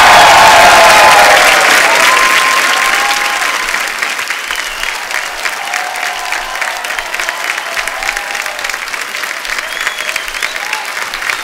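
Studio audience applauding, loudest at first, then settling after about four seconds into steadier, lighter clapping.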